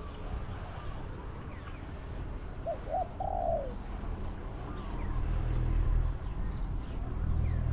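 Spotted dove cooing once, about three seconds in: two short notes, then a longer falling coo. Faint chirps of small birds and a low steady rumble lie underneath.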